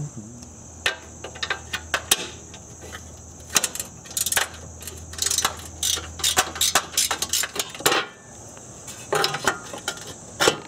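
Hand ratchet clicking in quick runs as the bolts holding a car's metal battery tray are loosened, with metal clinks and knocks as the tray and loose bolts are handled.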